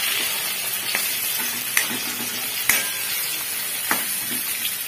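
Masala-stuffed small brinjals frying in hot oil in a metal kadhai with a steady sizzle, while a metal spatula stirs them and taps sharply against the pan a few times.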